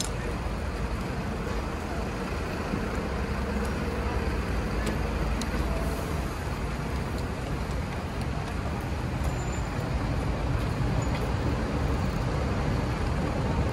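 Steady city street noise: a continuous low rumble of road traffic, with a few faint clicks.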